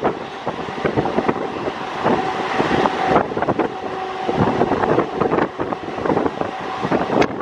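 Electric multiple-unit local train running at speed, heard from its open doorway: a dense, rattling clatter of wheels and coach over the track, with wind buffeting the microphone. A steady whine comes in for a couple of seconds around the middle.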